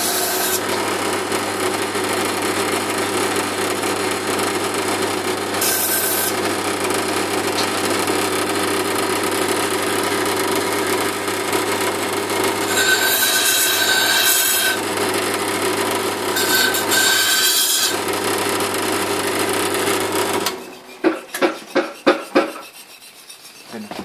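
Horizontal water-fed grinding wheel running with a steady motor hum while the steel bolster of a Wüsthof chef's knife is pressed against the abrasive stone to grind it away. There is a hissing grind about 6 s in and again in longer passes from about 13 to 18 s. The wheel's hum cuts off about 20 seconds in, followed by a few scattered knocks.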